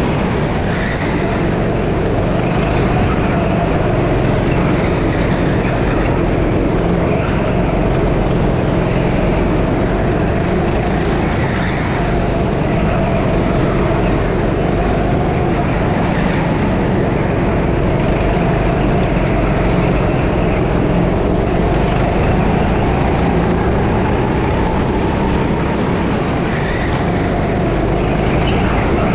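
Onboard sound of a 6.5 hp single-cylinder kart engine running hard under racing load. Its pitch rises and falls over a few seconds at a time as it speeds up and slows through the corners, over a steady rushing noise.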